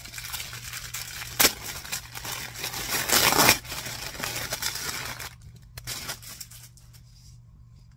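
Thin plastic packaging bag crinkling and rustling as it is handled and opened, with a sharp snap about a second and a half in and the loudest rustle around three seconds in; it dies down after about five seconds.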